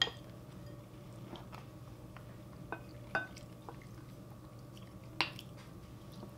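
A wooden spoon tapping and scraping on a ceramic plate while food is scooped up: a handful of short, sharp clicks spread out, the loudest about five seconds in, with faint eating sounds between.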